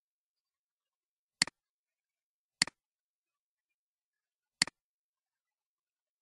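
Computer mouse button clicking three times, each click a quick press-and-release double tick; the second comes about a second after the first and the third about two seconds later.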